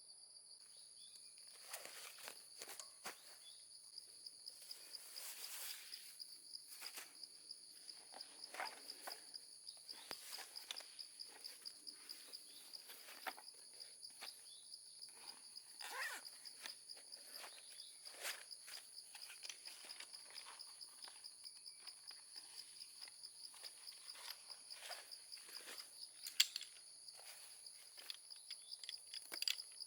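Insects trilling steadily and high-pitched, with faint irregular rustles and clicks over them.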